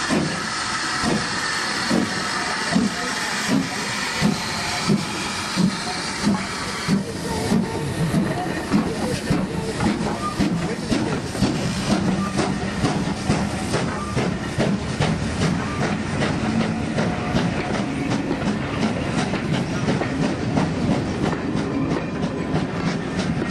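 GWR Large Prairie 2-6-2 tank steam locomotive No. 4160 passing slowly with steam hiss and a regular exhaust beat, about one beat every 0.7 seconds. After about seven seconds the hiss fades and the clatter of its coaches' wheels over the rail joints takes over as the train rolls by.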